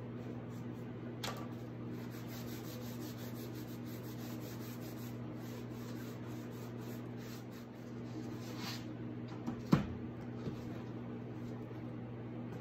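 Cloth rag rubbing over a painted book cover, wiping off dark wax, over a steady low hum. A single sharp knock about ten seconds in.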